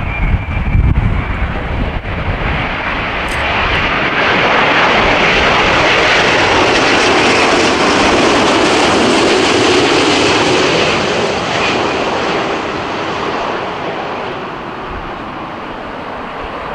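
Airbus A330-900neo's Rolls-Royce Trent 7000 jet engines at approach power as the airliner passes low overhead on final approach. The jet noise swells over the first few seconds, holds for several seconds, then fades as the aircraft flies on toward touchdown.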